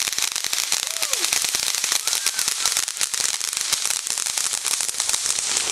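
Ground firework spraying sparks with a dense, rapid crackle of many small pops, going on without a break.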